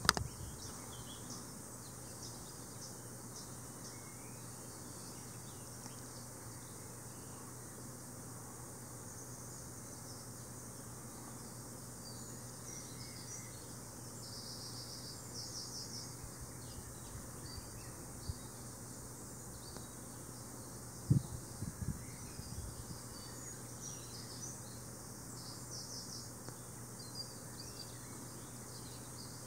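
Quiet outdoor ambience: a steady background hiss with scattered high-pitched chirps, some in short rapid runs, and a few low bumps about two-thirds of the way through.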